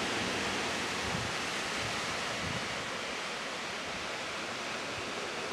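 Steady rushing of small waves breaking on a sandy beach, mixed with wind.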